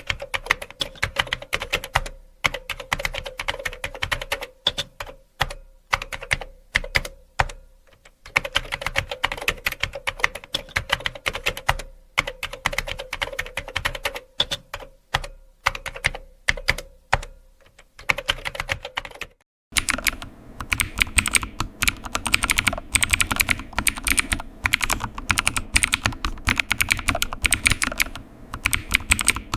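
Typing on a computer keyboard: rapid key clicks in runs broken by short pauses. About two-thirds of the way through, the sound changes abruptly to denser, fuller-sounding typing.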